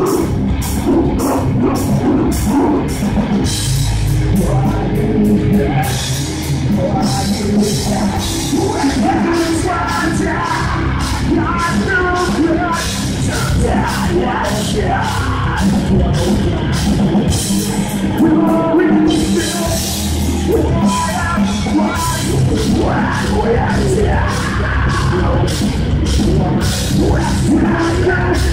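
Heavy metal band playing live: distorted electric guitars, bass and a Pearl drum kit with fast, steady drum and cymbal hits, under a vocalist's harsh shouted vocals.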